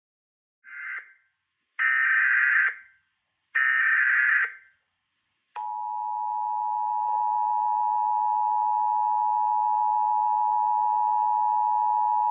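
Emergency Alert System header: three short bursts of warbling digital data tones, the first one fainter, followed about a second later by the steady two-tone EAS attention signal. The attention signal is two pitches sounding together, and it announces the start of an emergency broadcast.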